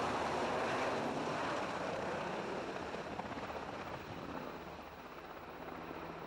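A heavy engine running close by: a loud rushing noise over a steady low hum, easing off gradually over a few seconds.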